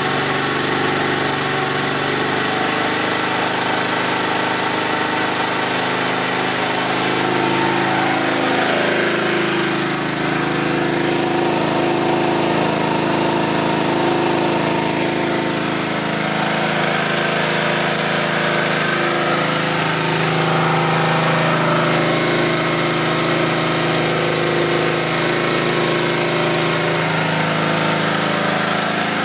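Chicago Electric 7 hp overhead-valve generator engine running steadily with no load, fuelled on pure hydrogen at a low flow rate; its speed drifts slightly a few times.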